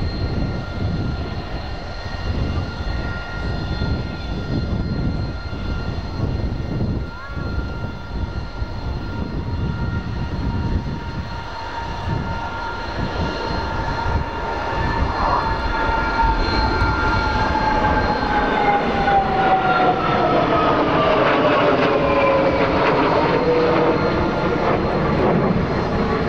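Jet engines of an RAF Voyager tanker and a Saab JAS 39C Gripen fighter flying past in formation: a whine over a low rumble that grows louder and falls in pitch in the second half as the pair pass overhead.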